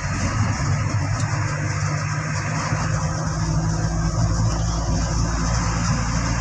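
Manual-transmission vehicle's engine running steadily in fourth gear with road and tyre noise, heard inside the cab.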